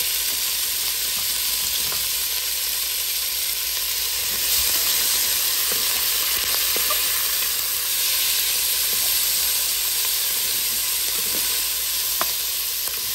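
Chopped sweet onion and diced bacon sizzling steadily in hot fat in a pot as the onion starts to sauté, stirred with a silicone spatula that gives a few faint scrapes and taps. The sizzle swells a little about a third of the way in.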